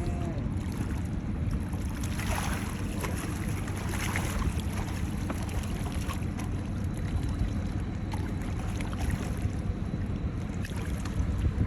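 Wind buffeting the microphone at the seashore: a steady low rumble with no clear pitch.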